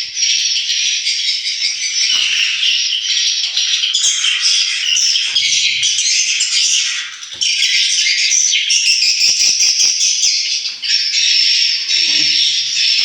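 Recorded edible-nest swiftlet calls played through a swiftlet house's tweeter speakers as a lure: loud, dense, unbroken twittering and chirping. The texture changes every few seconds, with a brief dip about seven seconds in.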